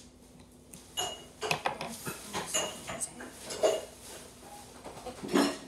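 Dishes and cutlery clinking and clattering in a kitchen: a string of separate ringing clinks, the loudest near the end.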